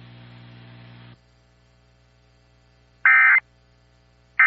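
Emergency Alert System end-of-message data bursts: short, loud, buzzy digital bursts of the SAME signal, each about a third of a second, with about a second between them. They come in a few seconds in and again near the end, and they follow about a second of faint steady hum.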